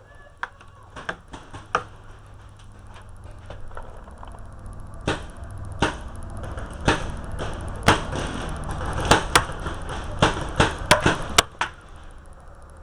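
Paintball markers firing, a dozen or so irregularly spaced single shots that come thicker and louder in the second half, over a low rustling noise.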